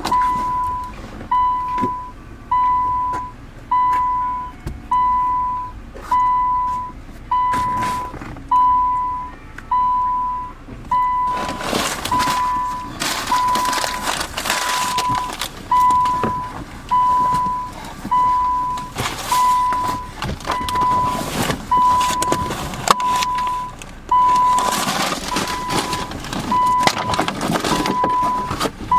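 Electronic warning beep at one steady pitch, repeating about once a second without a break. A rushing noise swells and fades a few times over it, from about a third of the way in.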